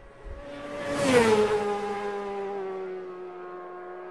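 Racing motorcycle passing at high speed. Its engine note builds to a loud peak about a second in, drops sharply in pitch as it goes by, then carries on lower and fades.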